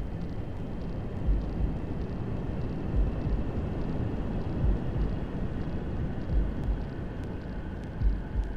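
Steady hair-dryer white noise with a recorded heartbeat under it: a low double thump about every second and a half to two seconds.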